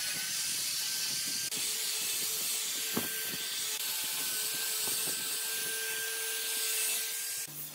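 Angle grinder fitted with a sanding drum running steadily, a motor whine over the hiss of the abrasive on wood, with one sharp click about three seconds in. It cuts off just before the end, giving way to music.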